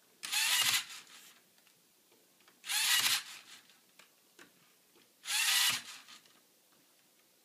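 LEGO NXT servo motor whirring three times, each run about half a second, spaced a little over two seconds apart, as it spins the rubber wheel that pushes a business card out of the dispenser's slot.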